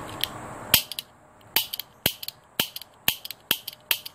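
Orange plastic toy cap revolver fired repeatedly: its hammer snaps down again and again, a sharp crack about twice a second, starting about a second in.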